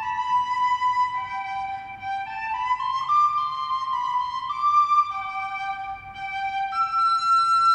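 A slow flute melody of held notes stepping up and down, with faint accompaniment beneath.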